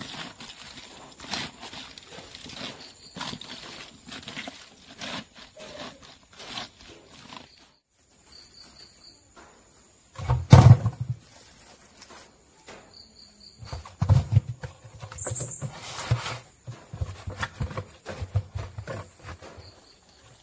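Hands tossing salted jackfruit bulbs in a plastic tub, the pieces rustling and clicking. Later, handfuls of the bulbs are squeezed and pressed down into a plastic jar with dull thumps, the loudest about halfway through. Insects trill faintly and steadily throughout.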